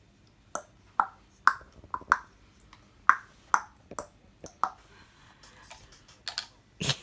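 A run of sharp snapping clicks, about two a second, keeping a steady beat for several seconds, then a louder single knock near the end.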